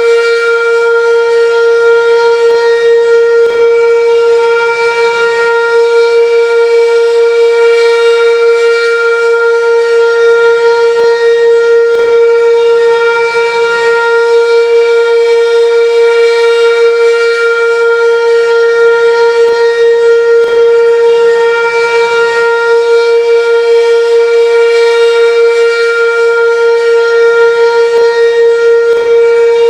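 Sentry 16V2T-B outdoor warning siren sounding a steady alert tone, held at one pitch without rising or falling.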